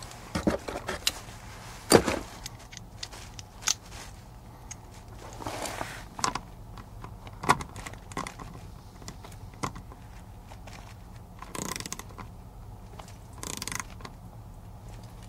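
Small quarter-inch-drive socket ratchet tightening 7/16 nuts on a plastic valve flange, about one turn each past finger-tight: scattered clicks and taps, with a few short runs of ratchet clicking.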